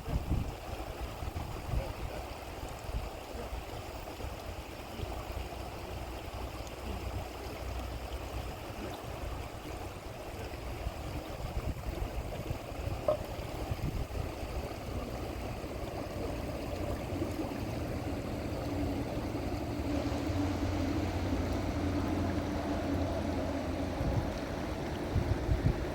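River water flowing steadily, with low rumbling underneath; a faint low hum joins in the second half.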